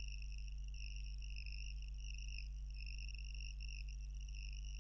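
Background noise with no speech: a low steady hum under a continuous high-pitched whine that wavers slightly.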